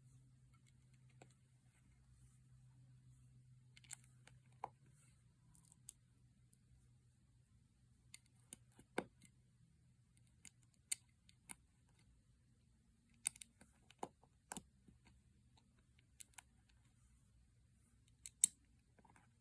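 Plastic Lego bricks being handled and pressed together: scattered sharp clicks at irregular intervals over a faint low hum.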